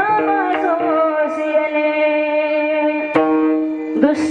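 Devotional kirtan singing: a voice draws out a long, ornamented melodic line over a steady held instrumental drone. Two sharp percussion strikes come about three seconds in and again near the end.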